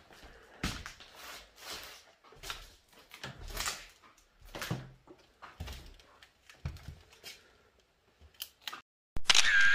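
Footsteps crunching and scuffing over debris, loose paper and broken tiles on a littered floor, about one step a second. Near the end, a short loud squeak with a pitch that bends.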